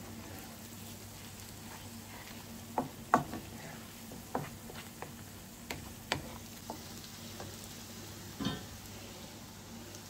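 Finely grated onion and garlic sizzling gently in melted butter in a frying pan while they soften, with a wooden spoon stirring and knocking against the pan in about seven short sharp clicks.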